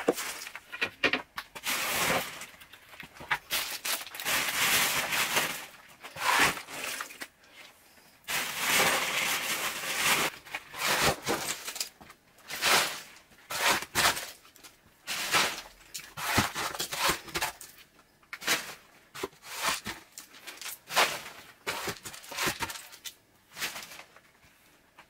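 Broom sweeping rubbish across a hard kitchen floor: repeated scraping strokes of the bristles, some long and some short and sharp, with crinkling plastic wrappers and rattling bits of debris pushed along.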